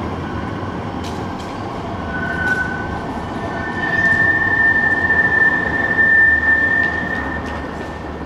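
Siemens Avanto tram-train running through a street curve, its wheels squealing against the rails: a short high squeal about two seconds in, then a long steady high squeal, the loudest sound, over the rolling rumble of the tram.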